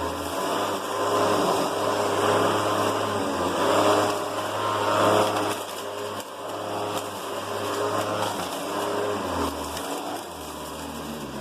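Vintage Hoover Convertible upright vacuum running on its normal speed while pushed over a pile of dirt and hair, its motor hum steady under a whine that swells and eases every second or two. It is running on a worn brush-roll belt.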